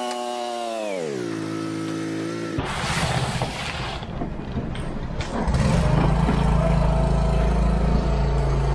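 An engine running at a steady pitch that drops about a second in and holds lower. After a sudden change at about two and a half seconds, the engine sound turns noisier, and it gets louder and steady about five and a half seconds in.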